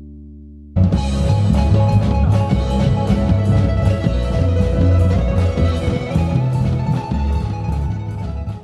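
A held chord fades, then about a second in a live band cuts in loud: drum kit with cymbal strikes about three a second, a heavy upright bass line and guitar.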